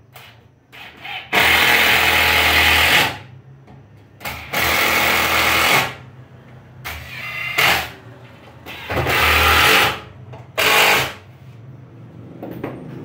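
Cordless drill-driver running in several short bursts as it bores and drives screws into a pine bench frame. The longest burst is about two seconds, about a second in, and the shorter ones are spaced a second or so apart.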